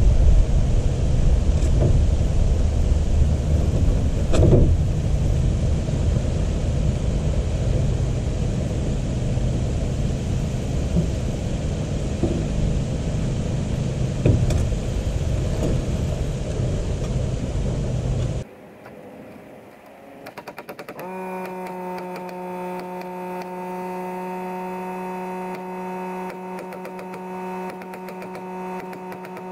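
Loud, steady rumbling outdoor noise with a few sharp knocks from work on the roof sheathing. About eighteen seconds in it cuts off abruptly, and a few seconds later a steady electrical hum sets in.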